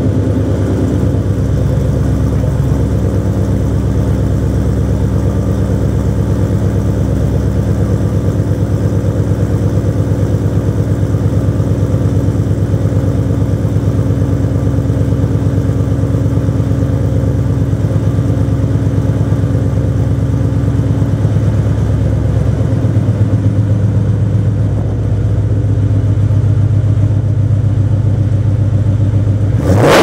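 2007 Mustang GT's 4.6 L V8 idling steadily through BBK long-tube headers, an off-road X-pipe, mid-mounted Pypes M80 mufflers and MBRP muffler deletes. The revs start to climb right at the end.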